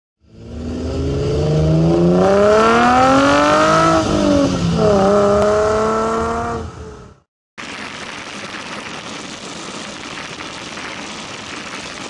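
Car engine accelerating hard: its pitch climbs, drops at a gear change about four seconds in, climbs again, then fades out around seven seconds in. After a short gap, steady wind and road rush from a camera mounted on the outside of a moving car.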